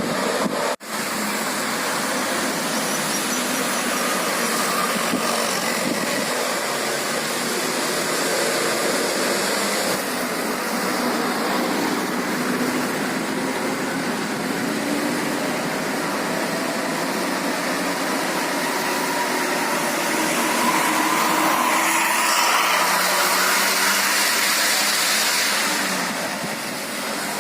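Steady engine and road noise from tour buses on the road, with a brief dropout about a second in.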